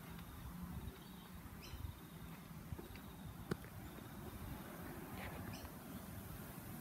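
Quiet outdoor ambience: a steady low rumble with a few short, faint bird chirps, and a single sharp click about halfway through.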